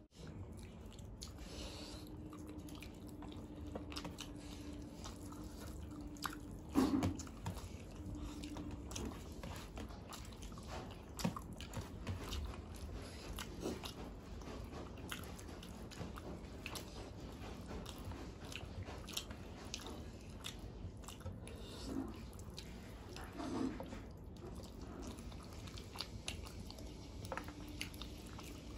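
Close-up chewing and mouth sounds of people eating rice and curry with their hands, with many small clicks of fingers and food on steel plates. A few brief louder mouth sounds stand out.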